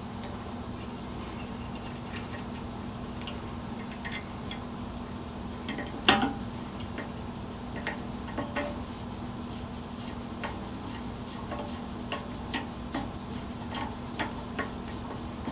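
Light metallic clicks and taps of hand-tool wiring work, a screwdriver driving a ground screw through a crimped ring terminal, with one sharper knock about six seconds in and quicker clicking in the second half. A steady low hum runs underneath.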